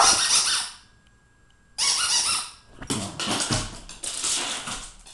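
Dog's squeaky toy squeaking in several bursts as a dog chews and squeezes it, with a short pause about a second in.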